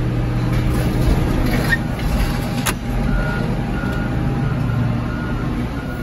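Car crusher's diesel engine and hydraulics running steadily under load as the press lid is raised off a flattened car, with one sharp metal clank midway. About three seconds in a reversing alarm starts beeping, about two beeps a second.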